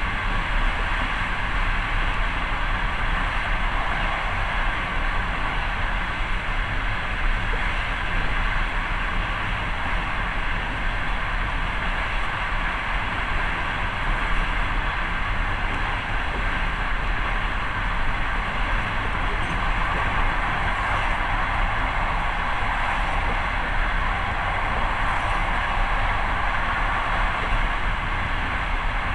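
Steady running noise of a moving passenger train, heard from inside the carriage: wheels rolling along the rails with an even, unbroken rush.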